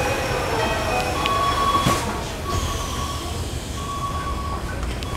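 Sliding doors of a Keikyu New 1000 series train car closing, shutting with a knock about two seconds in. A beeping tone repeats in pulses of just under a second.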